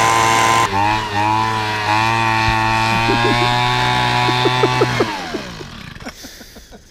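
Handheld leaf blower running steadily as it blows air into a campfire, then winding down and stopping about five seconds in.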